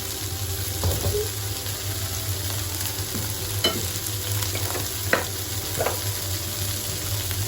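Chicken pieces stir-frying in hot oil with dry chilies, garlic and mala paste: a steady sizzle, with a few short scrapes of the spatula in the pan.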